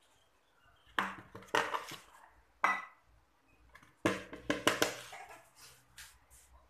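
A metal spoon knocking and scraping against bowls as dry coating flour is spooned into a plastic mixing bowl and stirred: short bursts of clatter about a second in and near three seconds, then a busier run of knocks and scrapes around four to five seconds.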